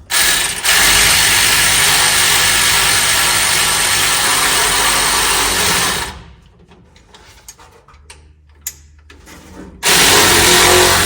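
Electric ratchet wrench spinning a socket down on a fastener, in one long run of about six seconds and then a short second run near the end to snug it up.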